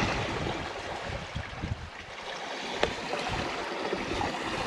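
Wind rushing over the microphone and water washing past the hull of a sailboat under sail, gusting unevenly, with a single light knock about three seconds in.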